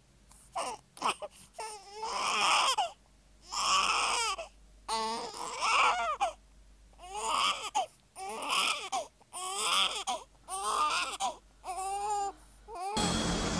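A high-pitched voice crying in a run of about nine loud wails, each rising and falling in pitch, roughly one a second. Near the end the crying cuts off and a steady rushing hiss takes over.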